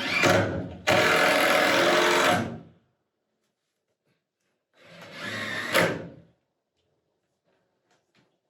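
Power drill running in two bursts of about a second and a half each, the second ending in a sharp click.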